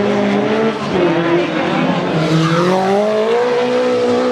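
Race car engine under hard acceleration: the revs drop at a gear change about a second in, then climb steadily through the rest of the gear.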